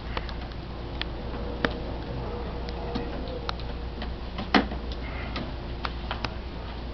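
Scattered light clicks and knocks from a wooden catapult being worked by hand as it is readied, with one louder knock about four and a half seconds in.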